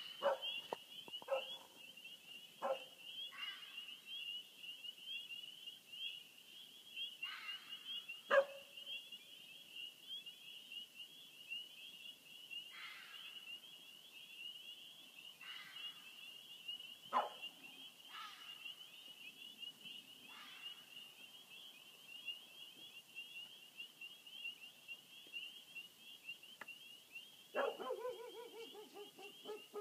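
An unidentified animal giving short sharp bark-like calls spaced seconds apart, with a longer, drawn-out call near the end. A steady high pulsing chorus sounds throughout.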